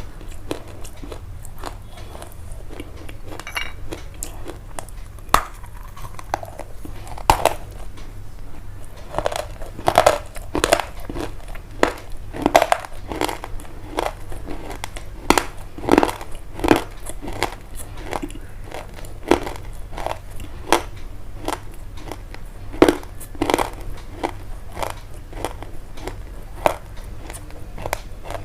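Close-up crunching and crushing: a steady run of crisp, irregular cracks and crackles, several a second, with some louder crunches here and there.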